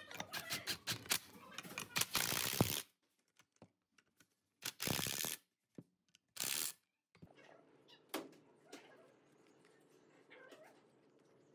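Cordless driver spinning a socket in three short bursts to run in the through-bolts of an electric fan motor's end cover, with clicks and rattles of the bolt and housing being handled before them. Soft handling noise and a single click follow once the driver stops.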